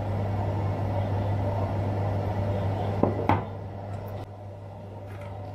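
A glass bowl is set down on a wooden countertop, giving two quick knocks about three seconds in, over a steady low hum.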